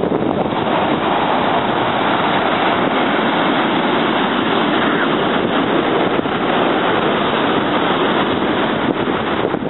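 Ocean surf breaking and washing up a sandy beach, heard as a loud, steady rush, mixed with wind buffeting the microphone.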